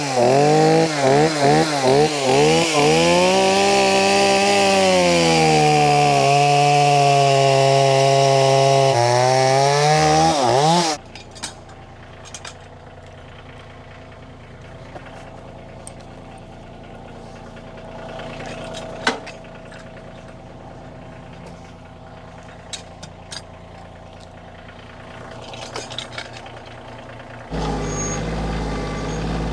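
Gas chainsaw revved in quick blips, then held at full throttle cutting through a cherry log for about ten seconds before cutting off suddenly. After it stops, a compact tractor's engine idles with a low steady hum under a few sharp knocks. Near the end the idling becomes suddenly louder and closer.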